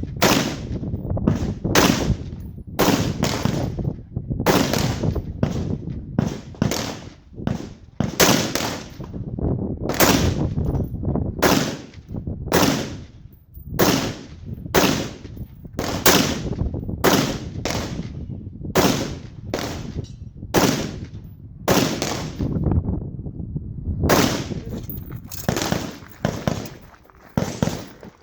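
Custom Colt AR-15 rifle firing shot after shot at a steady competition pace, about two shots a second, many in quick pairs, each crack ringing briefly, with a short pause about three quarters of the way through.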